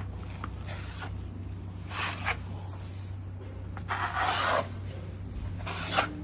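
Four short, rough scraping strokes of block-laying work, with a steady low hum underneath.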